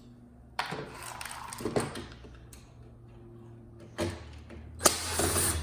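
Scraping and rattling of a TV's metal parts being handled during disassembly, in several short bursts with a few sharp clicks, the loudest near the end.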